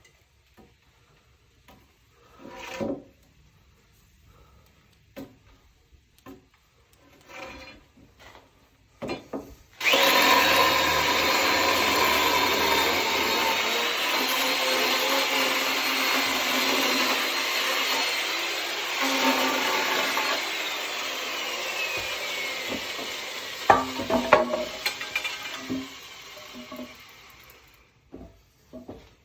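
Wood being handled with scattered knocks, then an electric chainsaw starts about ten seconds in and runs steadily with a high whine while cutting firewood. The whine drops in pitch partway through, a few sharp knocks come near the end of the cut, and the saw winds down and stops.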